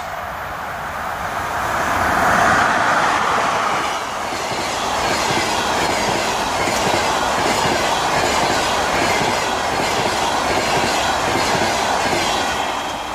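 A ChS7 electric locomotive rushes past at speed about two seconds in, followed by the passenger coaches of a long train. Their wheels clatter over the rail joints in a steady clickety-clack that fades near the end.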